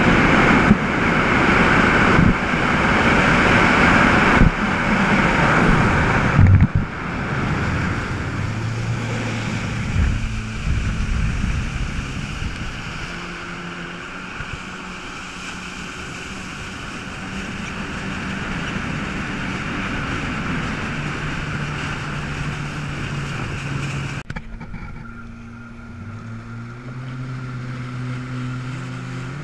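Yamaha WaveRunner jet skis under way at speed: loud rushing wind and water for the first six seconds, then a quieter, steady engine note that steps up and down with the throttle. Near the end the engine note climbs as a jet ski accelerates past.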